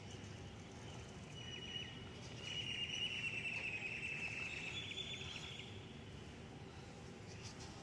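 A small animal's faint, high, buzzy trill, starting about a second and a half in and lasting about four seconds, over a low background hiss.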